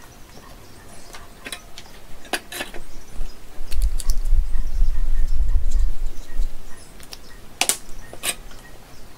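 Light clicks and knocks from lithium-ion battery cells and a paint marker being handled on a workbench, with a low rumble of handling noise for a few seconds in the middle and two sharper clicks near the end.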